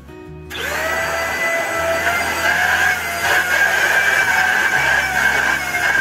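Mondial Turbo Cycle AP-36 corded handheld vacuum cleaner switched on about half a second in. Its motor whine rises briefly as it spins up, then it runs steadily with a high whine and rushing air as it is worked over the sofa cushions.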